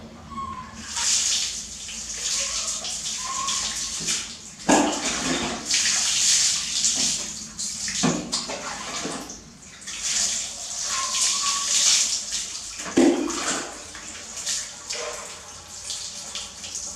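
Water scooped from a plastic bucket with a plastic dipper and poured over a baby monkey being bathed, splashing and running onto a tiled floor in repeated pours, with a few sharp knocks of the dipper against the bucket.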